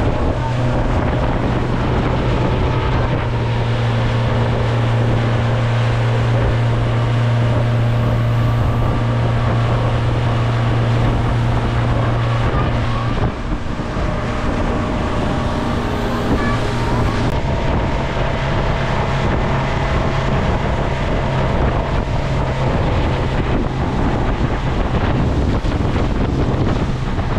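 Tour boat's engine running with a steady low drone while underway, with wind rushing over the microphone and water noise. The engine note drops out briefly about halfway through, then comes back.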